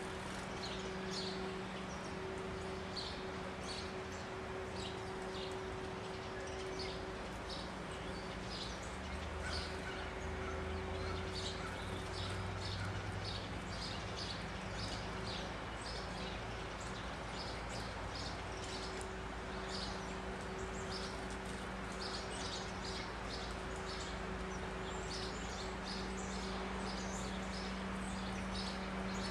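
Small birds chirping with short, high calls, one or two a second, over a steady low hum.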